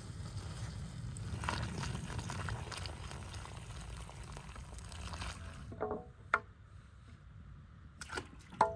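Hot water pouring in a steady stream from a tipped large aluminium stockpot onto the ground, draining the first boil off beef legs; the pour stops about five and a half seconds in. A few sharp metal clanks with a brief ring follow near the end as the pot and a metal basin are handled.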